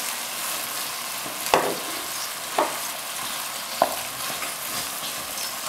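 Minced chicken sizzling in oily masala sauce as it is stirred in a pot with a wooden spatula. The spatula knocks against the pot three times.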